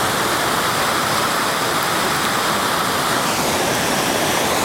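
Fast-flowing floodwater rushing steadily, an unbroken sound of running water.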